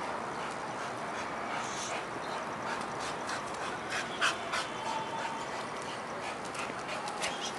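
Dog panting as it jumps and plays, with scattered short sharp clicks and one louder sharp sound about four seconds in.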